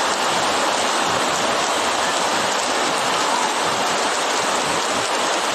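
Heavy rain falling steadily onto floodwater and leaves.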